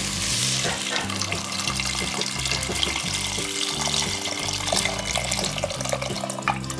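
Water pouring in a stream into a stainless steel pot of fried chicken pieces, splashing as it fills, over background music.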